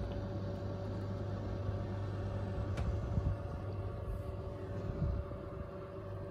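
Electric oven running with a steady hum while its door is eased open, with a faint click about three seconds in.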